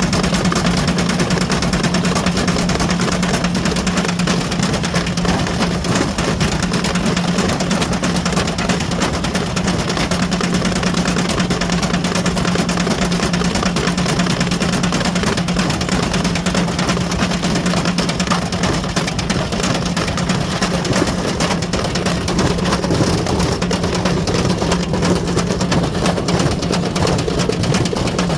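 Ariston Margherita washing machine running at a steady high drum speed with a brick inside: a loud constant motor hum under a dense, unbroken clatter and rattle.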